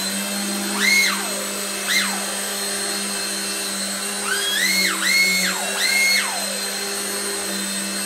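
Small electric coaxial RC helicopter hovering with a steady rotor hum, its motor whine climbing sharply and falling back several times as the throttle is worked: once about a second in, again at two seconds, then three quick rises between four and six seconds. These are the throttle corrections of a landing attempt.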